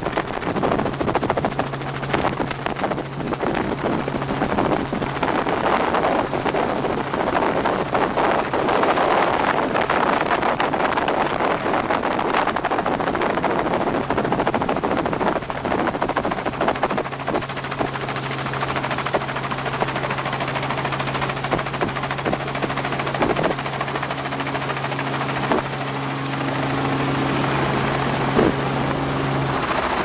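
Helicopter engine and rotor running steadily, heard from inside the cabin, with a constant low hum under the rotor noise as the helicopter comes down and settles onto a floating pontoon.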